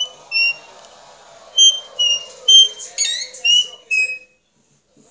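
A young girl's high-pitched squeaks, about eight short ones in quick succession, ending about four seconds in.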